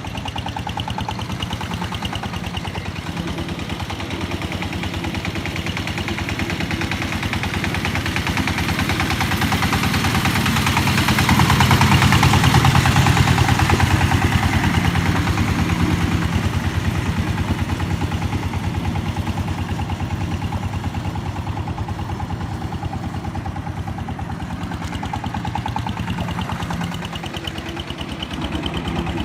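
Engine of a ride-on plough boat tilling a flooded mud paddy, running steadily with a rapid, even thudding beat. It grows louder about ten seconds in, then settles back after about fifteen seconds.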